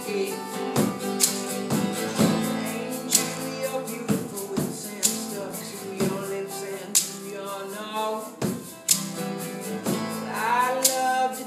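Acoustic band music: strummed acoustic guitars with a sharp percussion hit about twice a second, and a voice singing from near the end.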